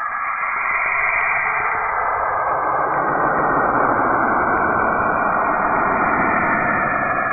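Saturn's radio emissions converted into audible sound: a steady, hissing, radio-static noise that grows fuller and deeper about two and a half seconds in.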